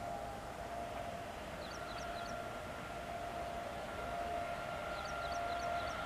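Distant horn of an approaching WAP-7 electric locomotive, held as one long, steady, siren-like note. A few short, high chirps come twice, about two and five seconds in.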